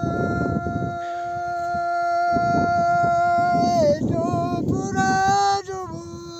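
An elderly man singing an unaccompanied Pahari folk couplet in a high, strained voice, hands cupped over his ears. He holds one long steady note for about four seconds, lets it bend down, then breaks into short phrases and holds another note near the end.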